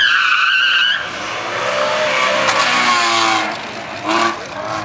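Car tyres squealing on asphalt: a sudden, loud, high wavering squeal lasting about a second, then a rougher, lower squeal for a couple of seconds, and a short loud burst near the end.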